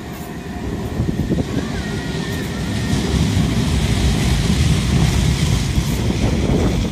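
Manchester Metrolink M5000 tram approaching and running past the platform, the rumble of its wheels on the rails growing steadily louder over the first few seconds and staying loud, with wind buffeting the microphone.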